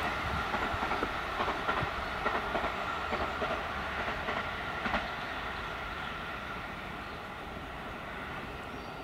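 285 series sleeper electric train running past, its wheels clicking over the rail joints, the sound slowly fading as it moves away.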